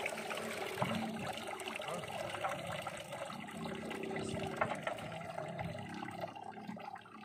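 Water trickling and splashing as it drains out of an outboard motor that was sunk in the river and now will not start.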